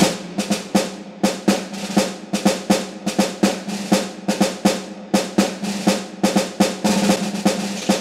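Background music: a fast, busy drum pattern of sharp snare-like hits, several a second, over a sustained low tone.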